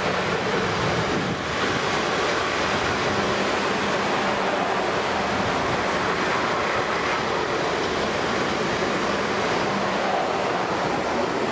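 Steady rushing rumble of a train running past, with wind noise on the microphone.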